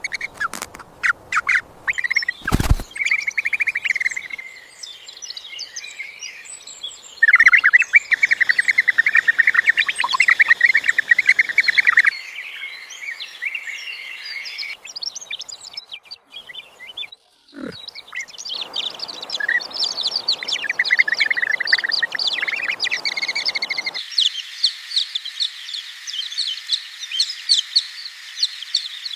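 Small birds chirping and twittering rapidly and densely, in a run of spliced clips whose sound changes abruptly several times. A few sharp clicks and a knock come in the first few seconds.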